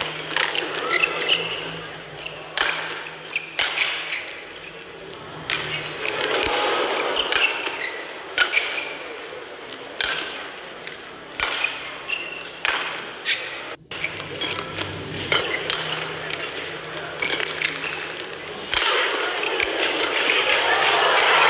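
Badminton rally: rackets crack sharply against the shuttlecock at irregular intervals, with shoes squeaking on the court over a crowd murmur in a large hall. Near the end the crowd noise rises into cheering and applause.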